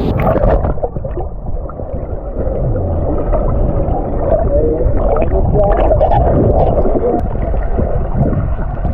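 Muffled rushing and gurgling of creek water heard with the microphone under the water, the highs cut off and bubbles churning, as from swimming through a waterfall's plunge pool.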